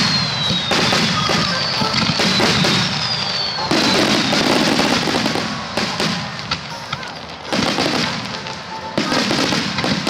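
Starmine fireworks barrage: a continuous run of bursts and crackling from many shells, with fresh volleys breaking in about every one to two seconds, and music playing alongside.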